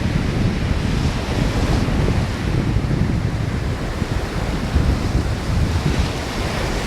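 Ocean surf washing onto the beach, with wind buffeting the microphone in a heavy low rumble.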